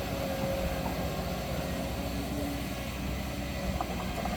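Diesel engine of a Kobelco excavator running steadily, with a few faint knocks near the end.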